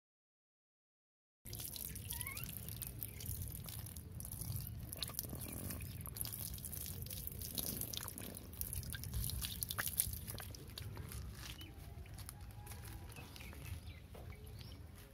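Water pouring and dripping onto a live catfish on wet concrete, with many small ticks and splashes. It starts after about a second and a half of silence.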